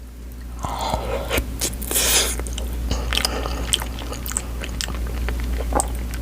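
Close-miked chewing of food, with many wet mouth clicks and smacks and a short hiss about two seconds in.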